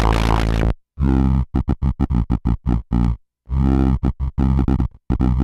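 Bastl Kastle Drum mini drum synth playing a gritty, pitched electronic beat. It starts as a dense, unbroken stream that cuts off just under a second in, then breaks into short stuttering hits in uneven clusters with brief gaps, its tempo stepped and its pitch swept by the patched Kastle v1.5.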